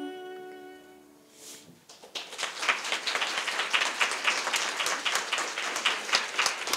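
The last held note of a sung lullaby with violin fades out, and about two seconds in an audience breaks into steady applause.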